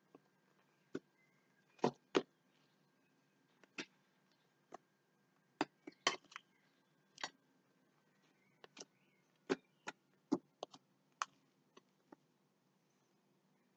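Fluffy slime being kneaded and folded by hand, giving irregular sharp clicks and pops, about twenty of them, some in quick pairs.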